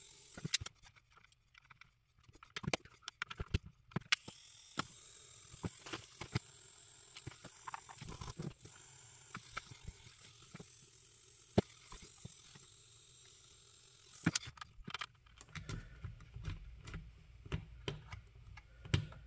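Scattered small clicks and taps of hand tools and small parts being handled on an opened radio transmitter during switch soldering work, over a faint steady high whine. A run of low bumps and knocks comes near the end.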